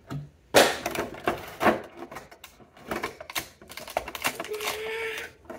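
Clear plastic wrapping and small plastic toy boxes being handled: an uneven string of sharp clicks, clacks and crinkles.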